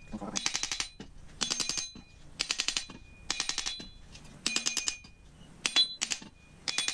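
Hammer tapping a titanium motorcycle exhaust pipe to loosen a tight-fitting neck and flange: quick runs of sharp metallic taps about once a second, the pipe ringing after each run.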